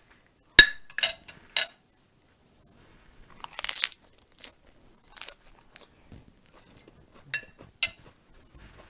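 A metal spoon clinks sharply three times on a china plate, with a brief ring each time, then a crisp lettuce leaf is bitten and crunched close to the microphone. Near the end the spoon clinks twice more on the plate.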